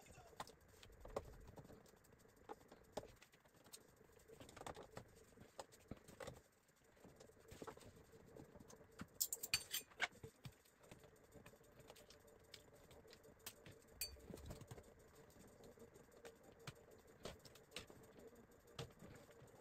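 Near silence with faint, scattered clicks and taps of screws being taken out of a flat-screen TV's metal frame and handled, with a short cluster of sharper ticks about halfway through.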